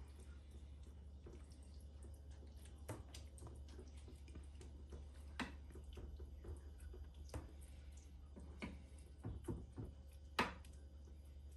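Wooden spoon stirring a soupy pasta mixture in a glass baking dish: soft wet squishes and scattered taps of the spoon against the glass, the sharpest about ten seconds in, over a low steady hum.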